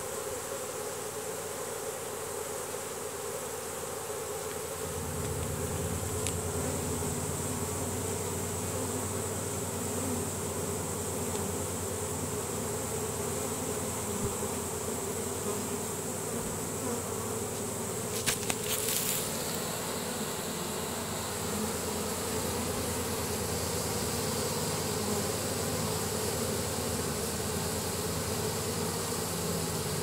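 Steady, dense buzzing of a honey bee swarm as the bees mass on the ground and march into a hive box, drawn in by Nasanov pheromone. The hum grows fuller about five seconds in, and a brief cluster of clicks sounds a little past the middle.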